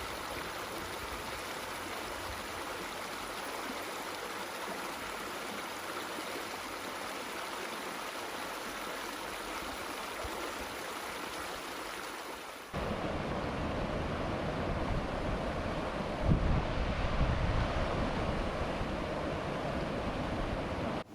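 Jemez River water rushing through the falls at Soda Dam, a steady hiss of moving water. About thirteen seconds in, the sound cuts abruptly to a louder, deeper rush with a few brief louder bumps.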